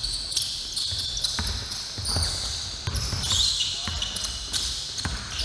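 A basketball bouncing on a gym floor in irregular thuds during live play, with players' and spectators' voices in the background.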